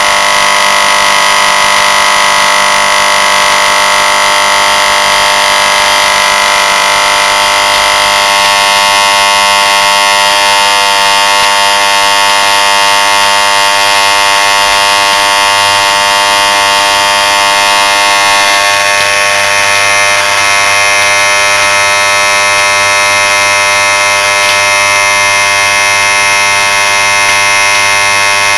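Electric motor of a gutted refrigerant compressor, run with its oil drained, giving a loud, steady electrical buzz with many overtones as its windings burn out. The tone shifts slightly about eight seconds in and again near twenty seconds.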